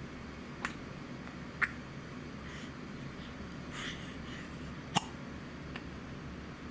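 A baby hiccuping: four short, sharp hiccups. Two come in the first two seconds and two near the end, the third the loudest and the last faint.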